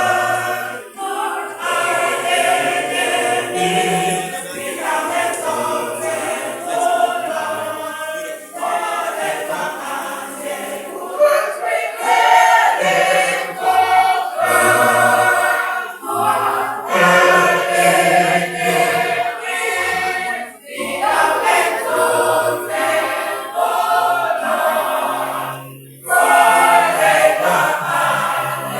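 A church choir singing a gospel song with music accompaniment, with short breaks between phrases.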